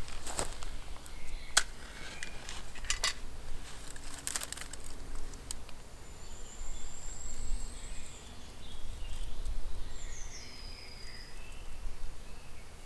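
Dry sticks cracking a few times in the first five seconds, then a bird calling twice with thin, high whistles, the second falling in pitch.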